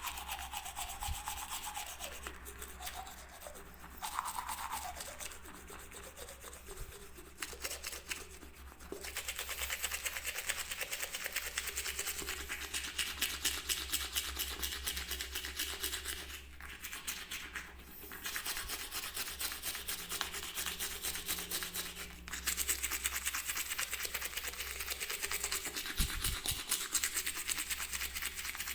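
Toothbrush bristles scrubbing in fast back-and-forth strokes, a steady scratchy rubbing broken by a few short pauses.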